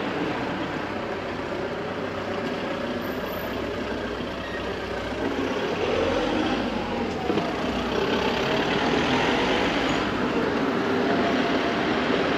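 Street traffic on a town high street: a motor vehicle running along the road, growing louder from about halfway through.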